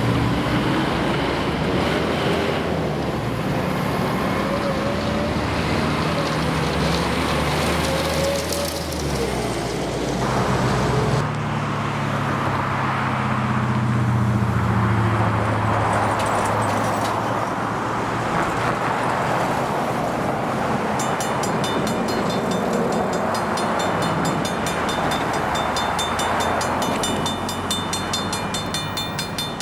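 A heavy engine running, with its low pitch shifting. About two-thirds of the way in, a mechanical level-crossing bell starts ringing with rapid, evenly spaced strikes.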